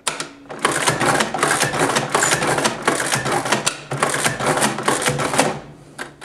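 A 1922 Burroughs Class 3 adding machine being worked by its hand crank pull after pull, its gears and printing mechanism clattering in dense, rapid clicks for about five seconds, with a short lull near the end.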